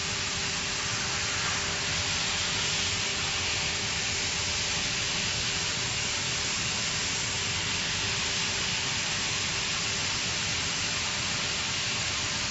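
CNC gantry plasma cutter's torch cutting through steel plate: a steady hiss of the arc and the spark stream blowing through the cut, with a faint steady hum beneath it.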